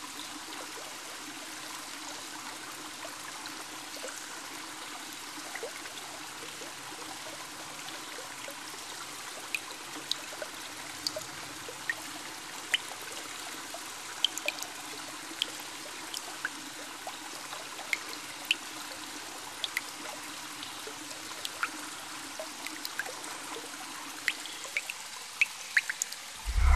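Water trickling steadily in a concrete culvert, with scattered sharp drips from about nine seconds in that come more often near the end.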